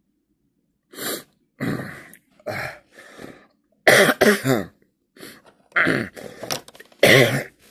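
A man coughing and clearing his throat into his fist, in a run of about eight short harsh coughs, the loudest about four seconds in.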